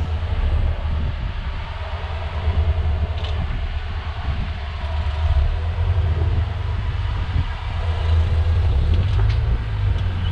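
Rock-crawling 4x4's engine running at low revs as the rig crawls up over boulders: a low, steady rumble that swells and eases a little.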